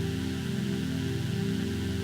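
Music: a sustained chord of several low, steady tones held unchanged, with an even hiss above it.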